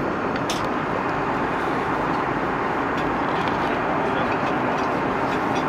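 Steady in-flight cabin roar of an Airbus A330-300, with a single sharp click about half a second in as a business-class seat's tray table is swung out of its armrest.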